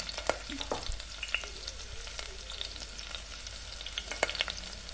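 Whole biryani spices (bay leaves, star anise, cinnamon sticks, cardamom) sizzling in hot oil and ghee in a stainless steel pressure cooker: a steady fizz with scattered small pops and crackles.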